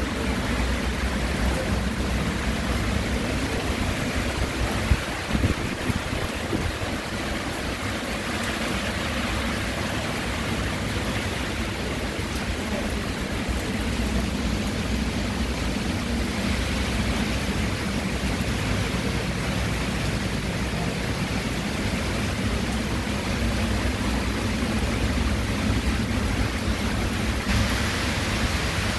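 Steady rain falling, an even hiss with a couple of brief louder knocks about five seconds in, turning hissier near the end.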